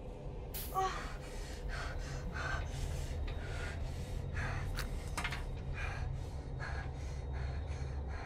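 A person's quick, heavy breathing and gasps, about three breaths a second, over a low steady hum.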